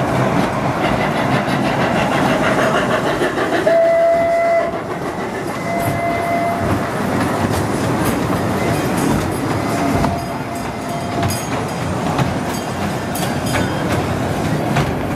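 Small children's ride-on train running on its track, with three short steady whistle toots about four, six and ten seconds in over continuous running noise.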